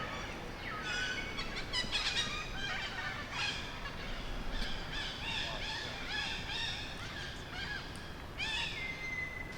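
Many short, high-pitched animal calls overlapping, each gliding in pitch; near the end one call drops and holds a steady whistle-like tone.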